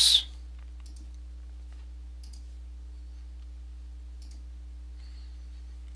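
Three faint computer-mouse clicks, spread a second or two apart, over a steady low hum.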